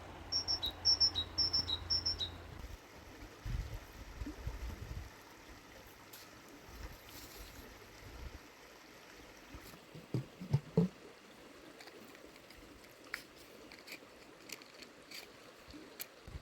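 A high two-note chirp repeated four times, about half a second apart, in the first couple of seconds. Faint outdoor background follows, with a few soft knocks and clicks.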